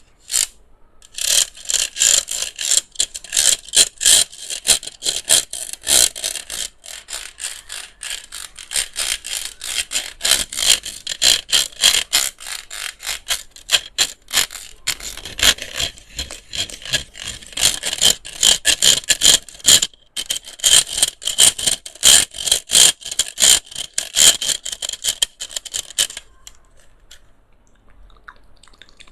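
Fast, irregular clicking and scratching on a handheld electric fan as an ASMR trigger. It stops abruptly about 26 seconds in.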